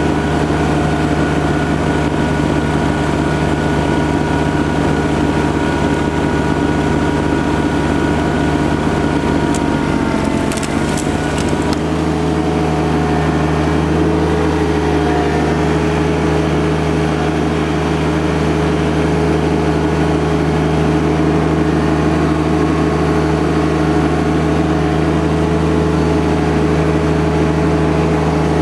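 John Deere 2210 compact tractor's three-cylinder diesel running with its front snowblower throwing snow, a steady whine over the engine note. About ten seconds in the pitch sags briefly, and then the whine stops, leaving the diesel running on steadily.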